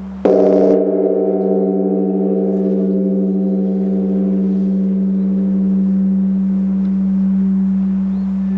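Large bronze Korean Buddhist temple bell (beomjong) struck once with a wooden striking log just after the start, over the low hum of the previous stroke still sounding. The upper tones throb and slowly fade while the deep hum rings on.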